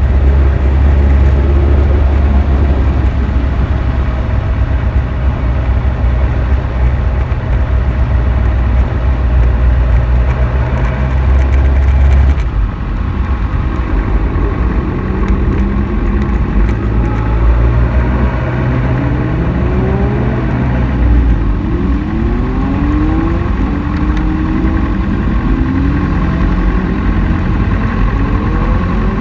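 Sport motorcycle engine running at low speed, a steady low drone for the first dozen seconds. After an abrupt change about 12 s in, short rising and falling revs come again and again as the bike and others around it pull up in the queue.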